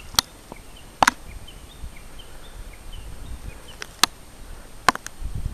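Quiet open-air ambience broken by four sharp clicks, with faint, short high chirps of small birds between them. A low rumble comes up near the end.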